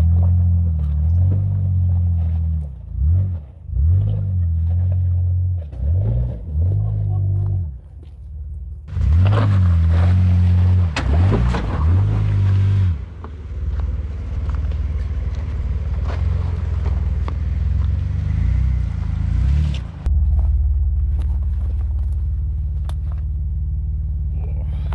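Jeep Wrangler engines working up a rocky, muddy trail, revving up and easing off over and over. The loudest stretch, about nine to thirteen seconds in, adds a rushing noise over the engine, and the last few seconds hold a steady low rumble.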